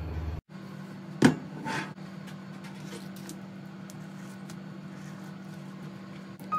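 Steady low hum of room machinery, with a sharp knock about a second in and a short rustle just after: hands handling a whole red sea bream on a plastic cutting board and peeling away the paper wrapped on it.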